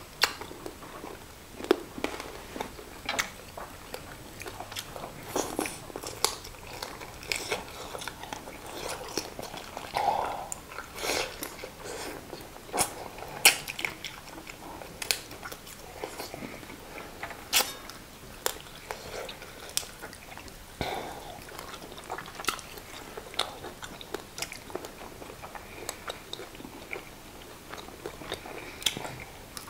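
Close-up eating sounds of people chewing and biting into chicken bones, with many sharp, irregular crunches and cracks between bouts of chewing.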